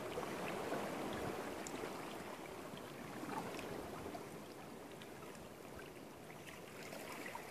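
Shallow water gently washing and lapping at rocks, a soft steady wash with faint scattered ticks and trickles, easing off slightly toward the end.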